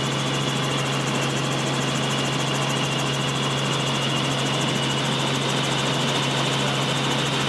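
Helicopter engine and rotor running steadily: a constant drone with a low hum underneath.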